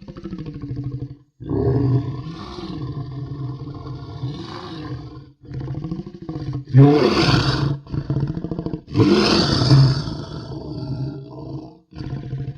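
Crocodilian bellowing: a series of long, deep, rumbling calls with short breaks between them, loudest around the middle.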